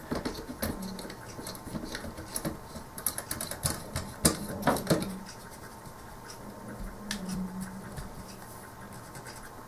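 Cotton bud scratching and rubbing old grease off the small metal gear wheel inside an Amiga A500 floppy disk drive, with scattered light clicks of the drive's plastic and metal parts and a brief sliding squeak near the middle.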